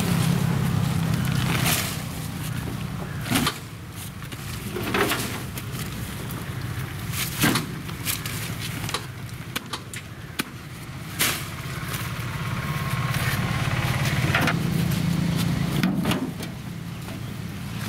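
Bajaj Maxima cargo autorickshaw's engine idling steadily, with several sharp knocks and scrapes as bagged plants and a wheelbarrow are loaded onto its metal bed.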